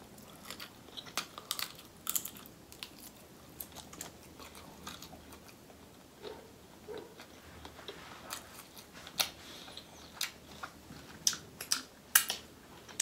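Close-miked chewing of shrimp from a seafood boil in butter sauce, with irregular wet mouth clicks and lip smacks scattered through; a few sharper smacks near the end as fingers are licked.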